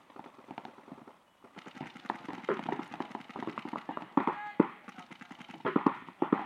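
Paintball markers firing rapid strings of pops, heaviest about four seconds in and again near the end.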